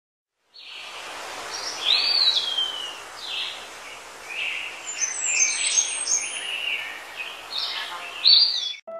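Several birds chirping and calling over a steady hiss of outdoor ambience, some calls sliding down in pitch. It starts about half a second in and cuts off just before the end.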